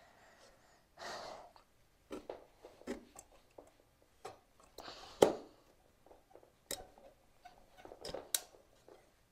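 Scattered knocks, taps and scrapes of a pole being pushed and twisted into a socket in a fabric-covered box base, with one louder knock about five seconds in.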